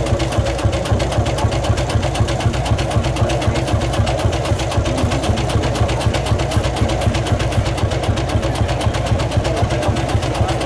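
Lanz Bulldog tractor's single-cylinder hot-bulb two-stroke engine running under steady load, its exhaust beating in a fast, even rhythm.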